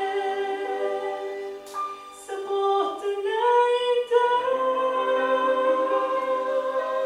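A woman singing a slow Romanian worship song into a handheld microphone over soft sustained backing chords. She breaks between phrases about two seconds in, then holds a long note with vibrato from about four seconds in.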